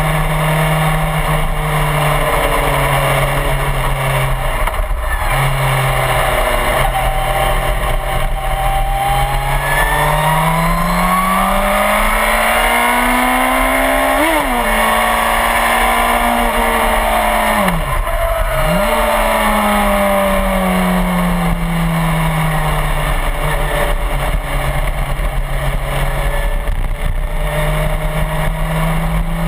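Suzuki GSX-R1000 sportbike's inline-four engine at speed on the track, picked up by a camera mounted on the bike. The revs climb steadily for several seconds and drop sharply at a gear change about halfway through, dip hard and recover a few seconds later, ease slowly, then build again near the end.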